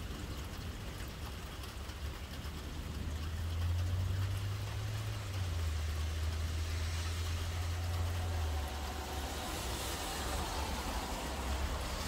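Thunder rumbling, a deep roll that builds about three seconds in and lasts around five seconds before easing, over the steady hiss of rain.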